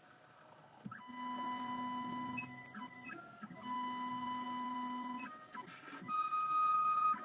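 CNC key cutting machine's stepper motors whining as it moves its axes in three separate runs, each starting and stopping sharply, the last at a higher pitch.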